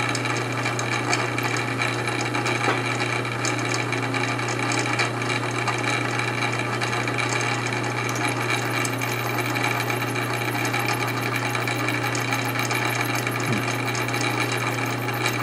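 Metal lathe running at a steady speed with a constant motor hum, a twist drill boring into a spinning pot-metal cap to drill out a snapped brass bolt, with faint scratchy ticking from the cut.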